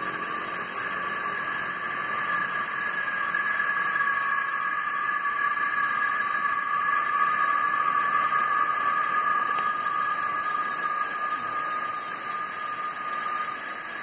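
Chorus of male cicadas singing: a steady, unbroken high-pitched drone made of several held tones.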